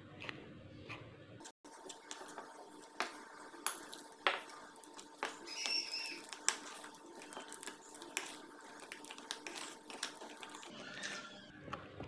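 Metal spoon stirring a thick flour-and-water batter in a ceramic bowl, with light irregular clicks as the spoon knocks the bowl.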